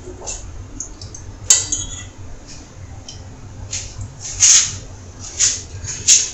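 Metal spoon stirring and clinking against a stainless steel pot of curry: one sharp clink about one and a half seconds in, then a few short scraping sounds in the second half.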